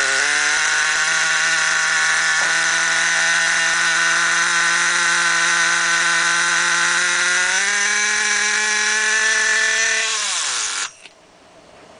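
HoBao Hyper 10SC's .18 nitro engine running on a cold start with a steady high note. The pitch steps up a little about eight seconds in; near the end the engine slows with a falling note and stops.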